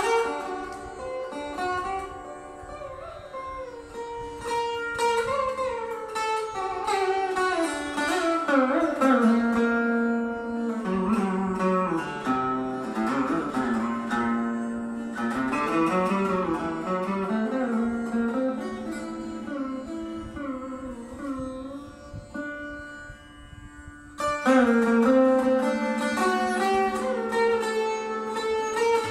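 Indian classical slide guitar played flat on the lap, unfolding raag Charukeshi in a slow, free melodic line. Notes glide smoothly up and down between plucks, and a loud fresh pluck comes near the end.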